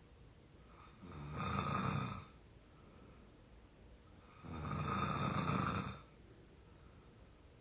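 A young adult snoring, out cold from exhaustion: two long snores, each lasting over a second, about three and a half seconds apart.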